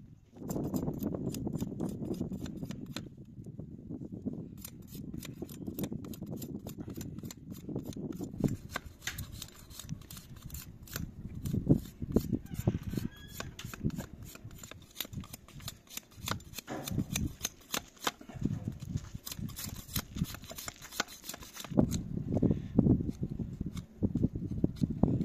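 A heavy knife splitting and shaving thin wooden sticks against a stump, heard as a fast, uneven run of small cracking and scraping cuts.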